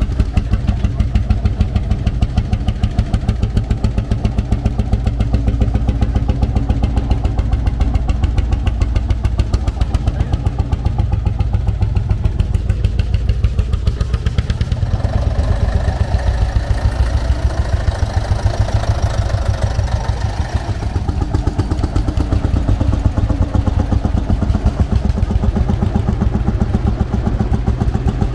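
Old tractor engine running steadily with an even, regular beat. A higher, rougher engine note joins for several seconds around the middle.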